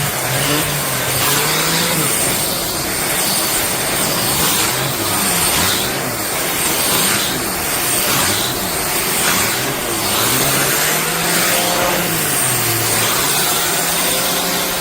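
Shark Stratos upright vacuum running with its pet brush attachment: a loud, steady suction rush with a low hum whose pitch keeps wavering up and down every second or two.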